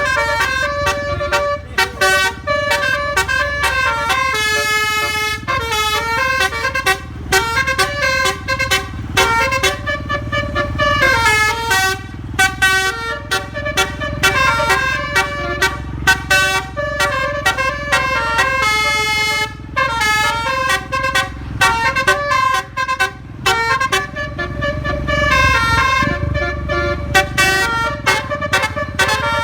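A bus's multi-tone telolet air horn (a Basuri module) playing a quick, stepping melody of horn notes, over the low running of the bus's engine.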